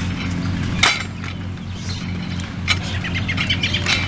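The Earthquake MC440 mini cultivator's small two-stroke engine idling steadily while the tiller is wheeled along, with a sharp clink about a second in.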